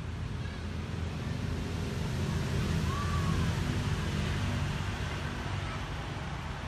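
Steady outdoor background rumble and hiss, with a short faint whistle-like tone about three seconds in.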